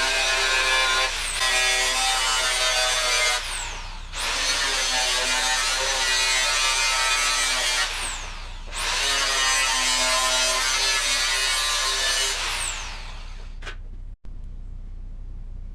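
A power tool running in three bursts of about four seconds each, with short pauses between, then stopping shortly before the end.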